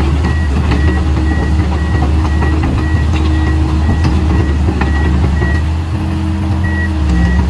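Komatsu PC220-8 excavator's turbocharged six-cylinder diesel engine running with a steady low drone as the machine works. Over it, a high-pitched warning alarm beeps about twice a second, pausing for about a second near the end.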